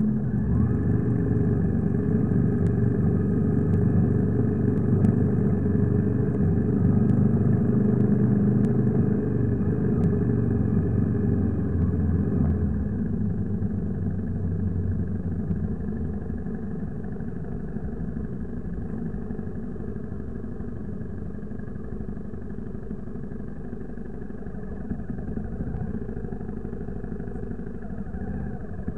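Motorcycle engine running as it is ridden along, steady for about the first twelve seconds. It then eases off and runs quieter as the bike slows.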